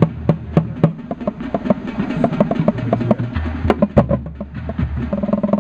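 Drum corps bass line of five tuned Yamaha marching bass drums played with mallets: a quick rhythmic run of sharp strikes passed between drums of different pitches, going into a sustained roll near the end.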